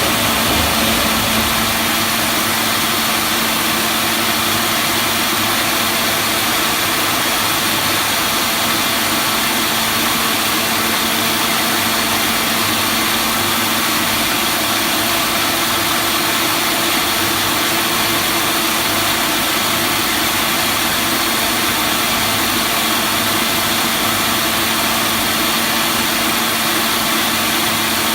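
Veneer peeling line running: a steady, even machine noise with a constant hum, holding unchanged throughout.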